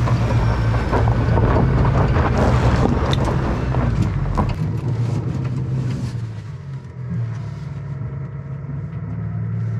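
Pickup truck engine pulling under load in four-wheel-drive low as it crawls up a steep climb with its G80 locking rear differential engaged, with scattered knocks and crunches over the first half. About six seconds in the load eases and the engine settles to a quieter, steady run.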